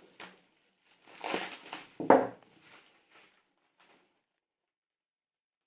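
Plastic cling film rustling and crinkling as it is wrapped in layers around a foil-wrapped roll, with one sharper, louder crackle about two seconds in. The sounds stop about four seconds in.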